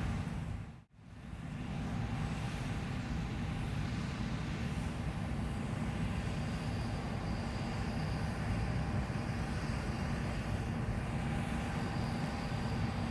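John Deere S780 combine running steadily while harvesting wheat: a steady low machine drone, with a faint high whine joining about halfway. The sound drops out briefly about a second in.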